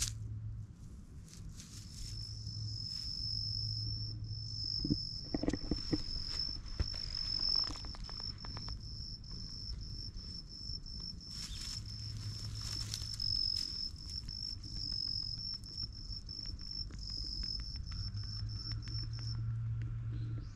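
An insect sings a steady high-pitched trill, starting about two seconds in and stopping shortly before the end. A few soft taps and rustles come about five to seven seconds in.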